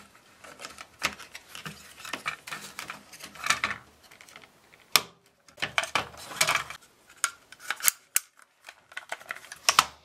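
Plastic smoke detector housing being handled and put back together: scattered clicks and scrapes of plastic parts, with sharp clicks about five seconds in and near eight seconds.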